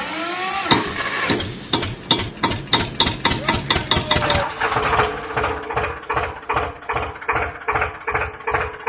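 Tractor engine running with a regular chugging beat, a bit over two beats a second. About four seconds in the sound changes abruptly and a steady hum joins the beat.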